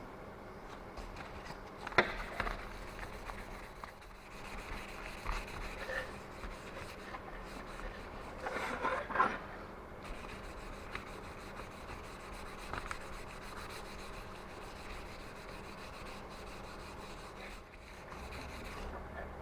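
Hand work on engine parts: irregular rubbing and scraping, with a sharp click about two seconds in and a denser stretch of scraping near the middle.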